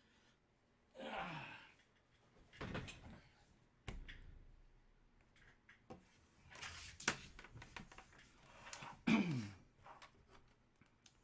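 Trading-card packaging and cards being handled on a table: rustling and sliding scrapes, one of them falling in pitch, a sharp knock about four seconds in, and a crinkling rustle with a click around seven seconds, with quiet gaps between.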